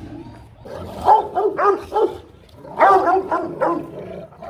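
Rottweiler barking in two bouts of several loud barks, the first about a second in and the second about three seconds in.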